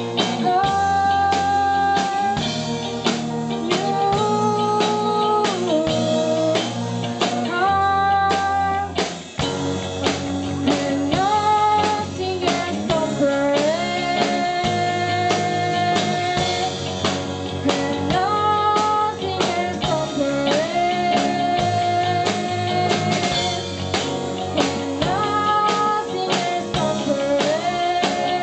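Live pop-rock band playing a cover song: a singer holding long, gliding notes over guitar and drums.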